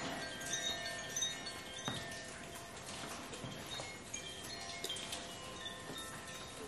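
A hand-held cylindrical chime swayed gently so that its clapper strikes it irregularly, a second or two apart, each strike leaving several clear tones ringing on.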